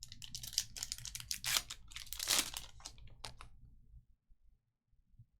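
A trading-card pack wrapper being torn open and crinkled for about three and a half seconds, loudest in two tears in the middle, then stopping.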